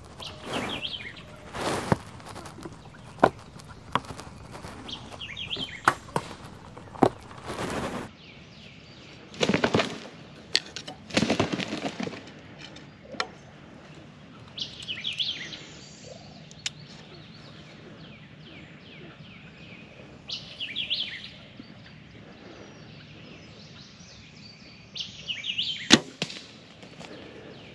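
A wild turkey gobbler gobbling about five times, each gobble a rattling call of about a second, several seconds apart. Between the gobbles come bursts of rustling and a few sharp snaps, with the loudest snap near the end.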